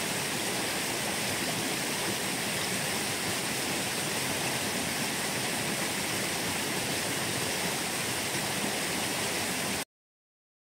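Water of a small river rushing steadily, an even wash of noise that cuts off abruptly near the end.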